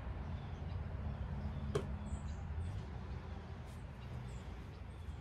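Backyard ambience between shots: a steady low rumble, a few faint high bird chirps, and a single light click nearly two seconds in.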